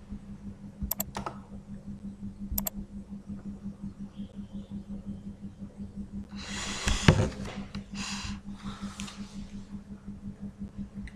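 Three sharp computer mouse clicks in the first few seconds, then a few short hissing rustles around the middle, over a steady low electrical hum.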